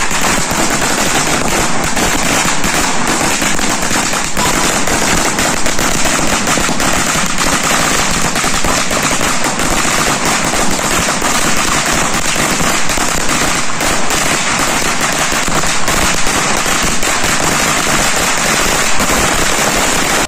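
A long string of firecrackers going off: a loud, rapid, unbroken crackle of many small bangs.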